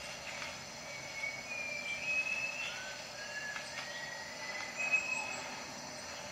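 Tropical forest ambience: a steady high insect hum, with a bird giving short clear whistled notes that step up in pitch, about seven of them.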